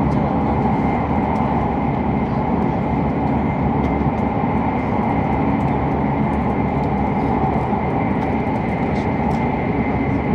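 Running noise of an E7-series Hokuriku Shinkansen train heard inside the passenger cabin: a steady rush of wheel, track and air noise with a faint, steady high whine.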